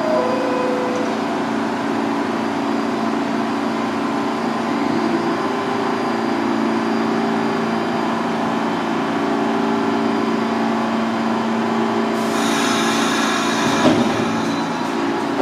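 R46 subway train standing at a station platform, its on-board equipment giving a steady mechanical hum with several low tones. About three-quarters of the way through, a loud hiss of air starts and lasts a couple of seconds, with a short knock near the end.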